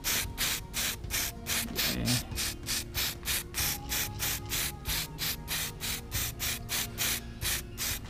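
Aerosol spray-paint can (Samurai Paint) sprayed in short, quick bursts, about four hisses a second, as paint is dusted onto the bird cage.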